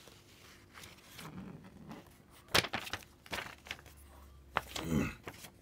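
Paper instruction sheet and cardboard kit box being handled on a table: quiet rustling of paper with a few sharp taps and knocks, the sharpest about two and a half seconds in.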